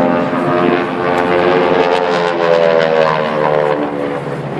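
Propeller aircraft's engine running at high power as the plane flies past, its pitch bending slightly down near the end.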